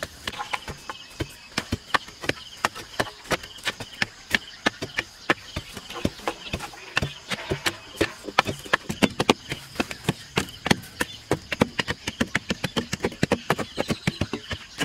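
A wooden stick pounding loose soil around the base of an upright wooden post, a fast run of sharp knocks several a second, tamping the earth firm so the post stands.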